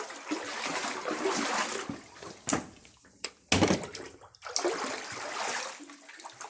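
Basement floodwater sloshing and splashing unevenly, with two sharper, louder moments about two and a half and three and a half seconds in.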